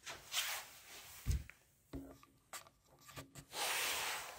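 Handling noises: scattered clicks and knocks, a dull thump just over a second in, then a brief scratchy rubbing rush near the end.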